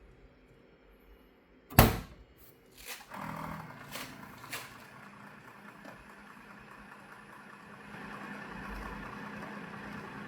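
Cuckoo robot vacuum docking station washing the mop pads: a sharp clunk about two seconds in and a few clicks, then a motor running steadily with a low hum, getting somewhat louder near the end.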